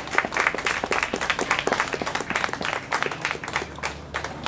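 Small audience applauding with hand claps, thinning out near the end.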